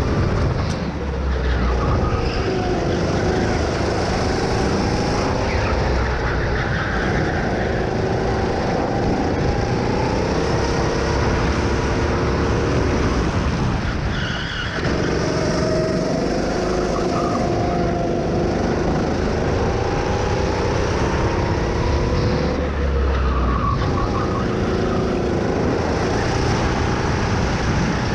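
Go-kart engine running hard under racing load, its pitch rising and falling with speed and dipping about halfway through as the kart slows for a tight hairpin, then climbing again. Wind rumbles over the microphone.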